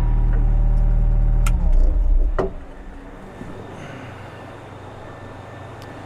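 Kubota KX121-3 mini excavator's diesel engine, which has a holed muffler, idling and then shut off about two seconds in. There is a click, the engine winds down and stops with a thump, and a faint steady hum remains.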